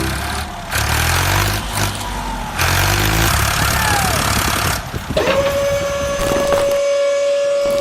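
A vehicle engine rumbling, with long stretches of hissing noise over it, then a single steady high tone that swoops up and holds from about five seconds in.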